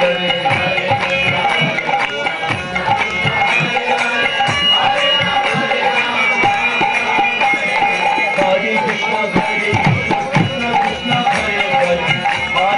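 Devotional kirtan music: voices chanting to a quick beat on hand drums.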